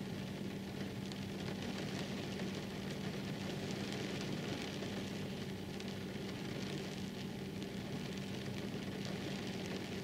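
Steady rain falling, with many fine raindrop ticks, over a steady low hum.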